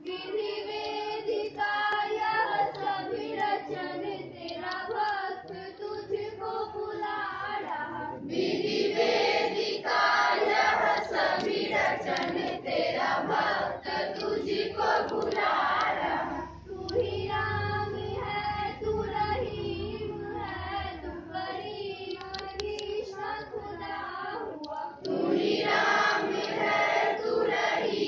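A group of schoolchildren singing a school prayer together, line after line, with brief pauses between the lines.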